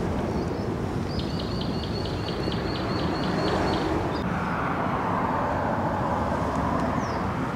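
Steady rumble of road traffic on the bridge overhead, swelling as a vehicle crosses about five seconds in. A bird calls a quick run of about ten short, high notes, some four a second, from about a second in until nearly four seconds.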